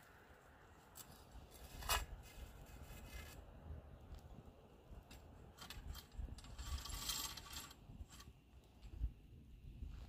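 Chain and hooks of a steel tripod campfire grill clinking and rattling as the hanging cooking grate is handled and lowered over the fire. There is a sharp click about two seconds in and a longer run of rattling a little past the middle.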